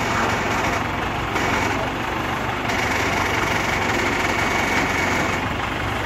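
Heavy engine of a crane vehicle running steadily at a low, even idle while it holds a suspended load.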